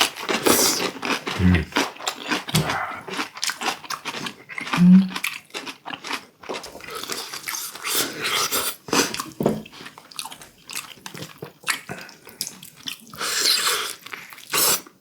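Close-up chewing and biting of food, with many short crisp crunches and wet mouth sounds.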